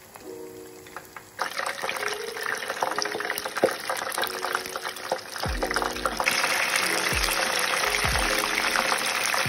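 Spring rolls deep-frying in a pan of hot oil: a dense, crackling sizzle, softer at first, that jumps louder about a second and a half in and turns louder and hissier again about halfway through.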